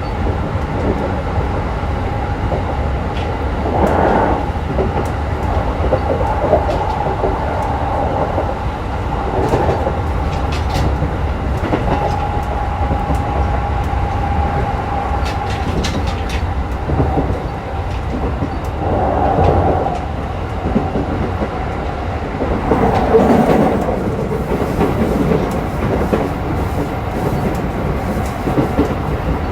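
Keikyu New 1000 series (1890 subseries) electric train car with Toyo hybrid SiC VVVF traction equipment, heard running: a steady tone over low rumble, with wheels clacking over rail joints now and then.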